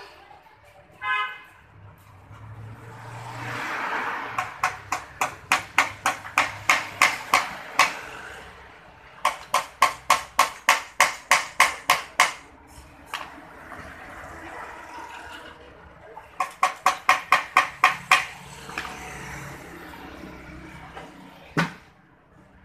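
Rapid hammer blows on metal at the motorcycle's exhaust header, in three runs of about ten sharp, ringing strikes at roughly three a second. A brief horn-like beep sounds about a second in.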